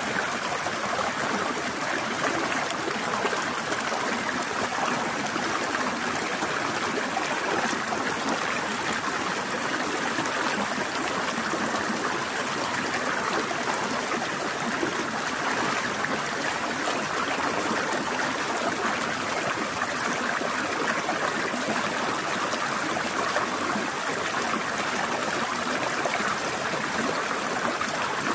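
Forest stream flowing and trickling over rocks, a steady, even rush of water without pauses or changes.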